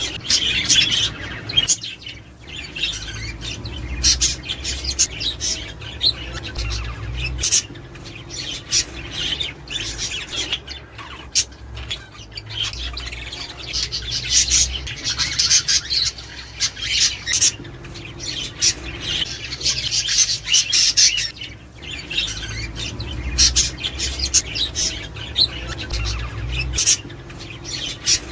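A flock of budgerigars chattering, with many quick chirps and warbles overlapping continuously.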